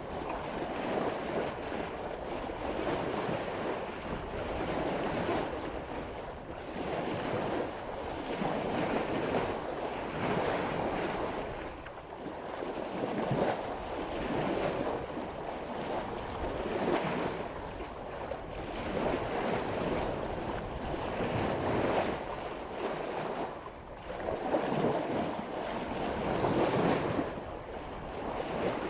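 Seawater rushing and splashing along the bow of a sailboat moving at about 5 knots, swelling and easing every couple of seconds as the hull cuts through the waves, with wind buffeting the microphone.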